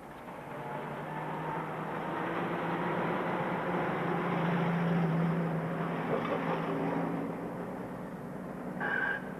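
City street traffic: a steady wash of car, bus and truck engines and tyres, with a short car horn toot near the end.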